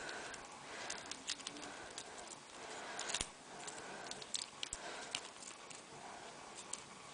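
Needle pick and rigid tension wrench working inside an ABUS 90/50 stainless steel padlock: faint, irregular small metallic clicks and scrapes as the lock is being picked.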